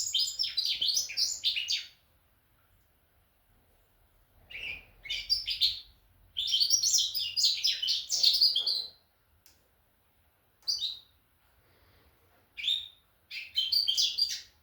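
Goldfinch mule cock, a goldfinch × canary hybrid, singing in bursts of fast, high twittering: a young bird still learning his song. Three longer phrases come in the first nine seconds, then shorter snatches near the end.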